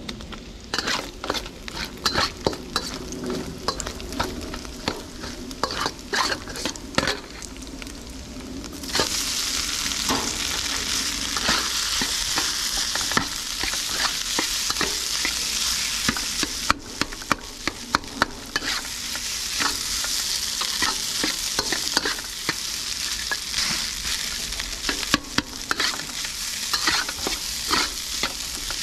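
Food sizzling in a hot wok while a utensil stirs it, with repeated sharp clacks and scrapes against the pan. About nine seconds in, the sizzle grows louder.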